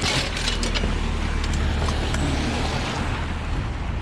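Van engine running with a steady low rumble and a hiss over it, and a few light knocks in the first half-second.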